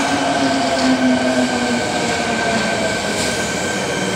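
Subway train running into the station past the platform doors: a steady rumble of wheels on rail, with the motor whine sliding slowly down in pitch as the train slows.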